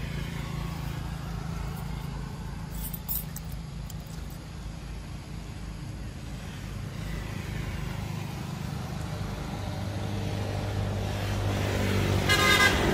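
A motor vehicle's engine running steadily, growing louder and nearer in the last few seconds.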